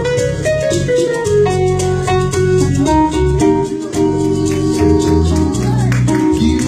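A band plays an instrumental passage between sung lines: melodic instrument lines over a bass line, with a steady ticking percussion rhythm.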